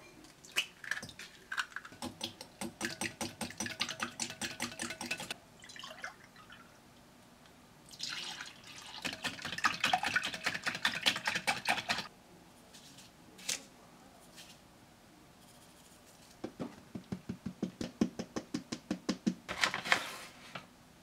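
Egg and milk being beaten in a glass bowl: three runs of fast, even strokes against the glass, with short pauses between.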